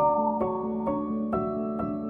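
Soft background piano-like keyboard music, gentle notes struck about twice a second over a held low tone.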